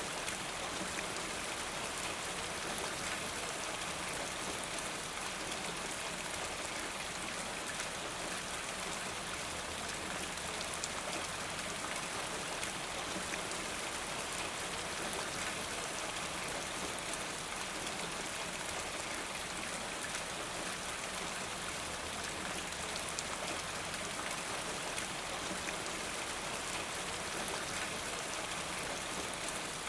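Steady rain falling, with dense fine drop patter.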